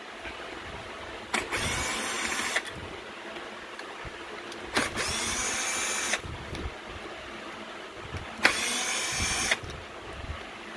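Cordless drill-driver backing out Phillips screws, three short runs of about a second each with pauses between them.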